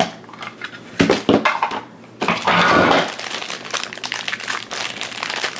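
Hands handling blind-box toy packaging: a few sharp clicks and knocks from a hard plastic case, then a loud crinkling rustle about two seconds in as a thin plastic blind bag is pulled out and torn open. The crinkling carries on after that.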